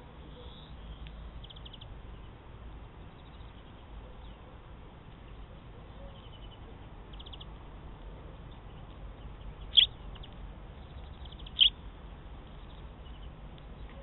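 Sparrows chirping: scattered short chirps and quick trills, with two louder chirps close by, a couple of seconds apart in the second half.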